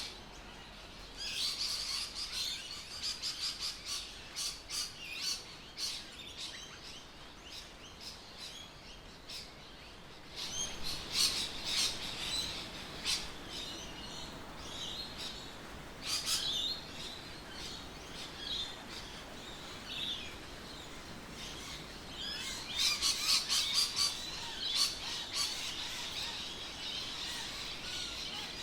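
Birds chirping and squawking: many short, sharp, high calls coming in clusters over a steady background hiss.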